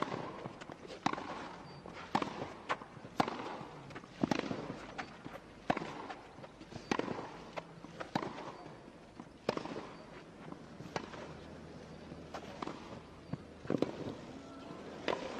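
A tennis rally: two players trade racket strikes on the ball, a sharp pop about once a second, with a quiet crowd between shots.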